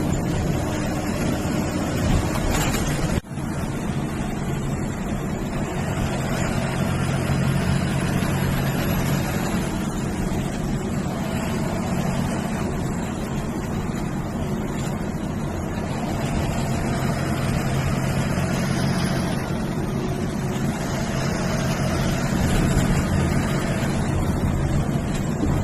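MSRTC bus's diesel engine running on the road: a steady low drone mixed with road and wind noise. Faint high whistles glide up and down a few times. The sound breaks off briefly about three seconds in.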